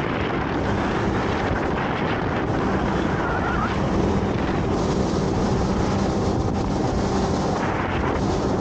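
Small motorboat running at speed: a steady engine hum under heavy wind buffeting on the microphone and the rush of spray from the hull. The engine hum fades out near the end as the boat comes off the plane and the spray dies down.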